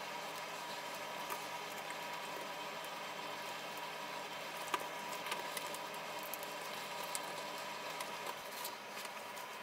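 Plastic toy train track sections being handled and fitted together: light plastic clicks and rattles, the sharpest just under five seconds in, over a steady background hum.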